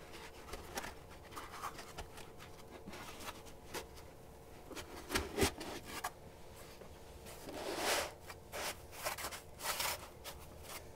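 Foam insert rubbing and scraping against the plastic walls of a toolbox as it is pushed down into place. The rubs come as scattered short strokes with a few soft knocks, louder a little past five seconds in and again around eight seconds in.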